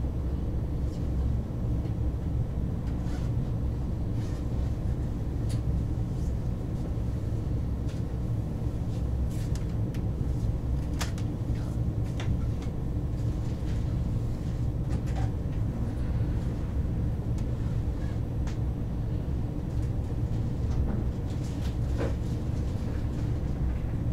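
KTX high-speed train running, heard inside the passenger cabin as a steady low rumble, with scattered faint clicks and rattles.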